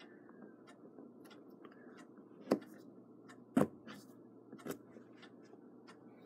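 Small pliers and a clock balance wheel being handled, with a few sharp metal clicks; the two loudest come about a second apart midway, while the hairspring is worked off the balance staff.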